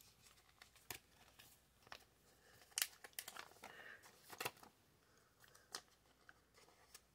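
Faint scratchy rustling and small clicks of a plastic card sleeve as a trading card is slid into it and handled.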